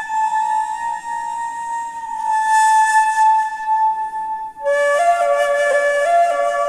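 Ney, the end-blown reed flute, playing a slow melody with a breathy tone: one long held note, a short break about four and a half seconds in, then a few lower notes stepping up and down.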